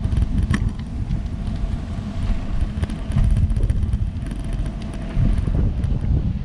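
Wind buffeting the microphone of a GoPro HERO7 on a moving bicycle: a heavy, uneven low rumble, with scattered faint clicks.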